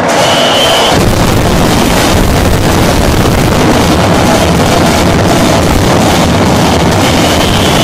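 Loud, steady, distorted din of a gymnasium during a volleyball rally, with the crowd and the hall noise overloading the camera's microphone.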